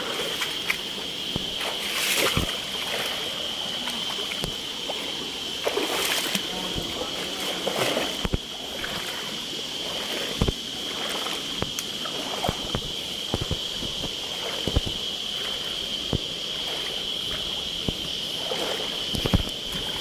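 Insects droning steadily at one high pitch over the wash of a forest stream, with scattered splashes of water and short knocks.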